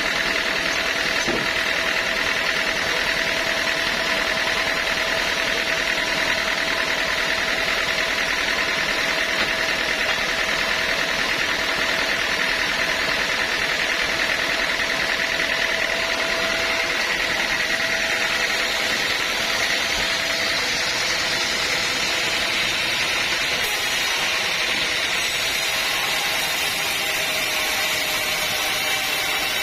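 Sawmill machinery running steadily, an engine-driven hum with a constant high whine.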